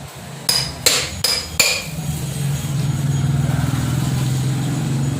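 Four quick hammer blows, about a third of a second apart, knocking on the hard plastic case of a sealed inverter battery to break it open; a steady low hum follows.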